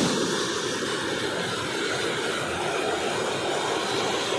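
Steady rush of turbulent muddy floodwater pouring through a breached canal.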